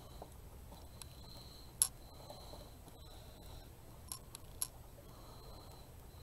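Quiet handling noise: a few light taps and clicks, the sharpest about two seconds in and two more a little after four seconds, as a small wooden crate and a tube of glue are moved about on a cutting mat.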